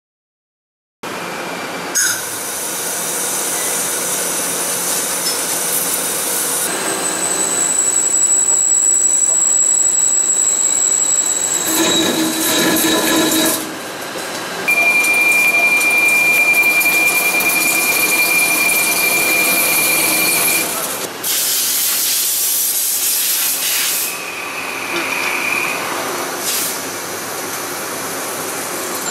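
CNC turning center cutting carbon steel in a run of separate operations (turning, grooving, turnmill drilling): a steady cutting hiss with thin high whines from the tool, starting about a second in and changing abruptly from one cut to the next.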